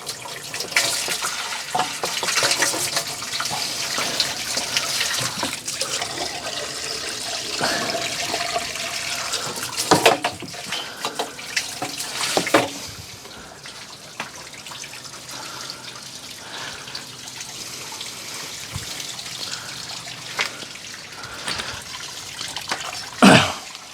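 Water from a garden hose running through a Samsung front-load washing machine's drum and spilling out of the opened drain connection, flushing out what is left of a clog. The flow is heavier for the first half and eases off about halfway through, with a few knocks, the loudest near the end.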